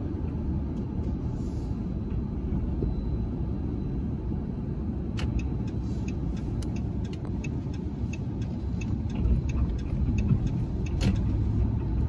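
Steady low engine and road rumble inside a moving pickup truck's cabin, with light, regular ticking in the second half.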